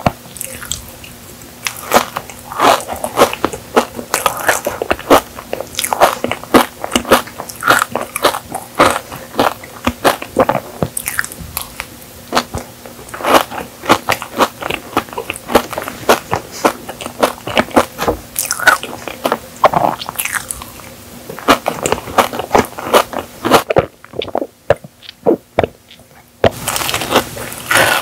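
Close-miked chewing and biting of Dubai chocolate cake: soft sponge and pistachio cream, with the toasted kadaif shreds crunching in many quick, crisp crackles. The sound drops briefly quieter about 24 seconds in.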